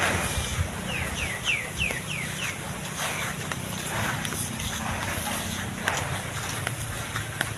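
Cow cropping grass at close range, with short tearing and chewing noises. A run of about six quick falling chirps comes about a second in.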